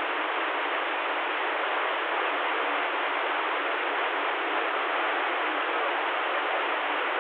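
Steady hiss of CB radio static, with no station coming through between transmissions.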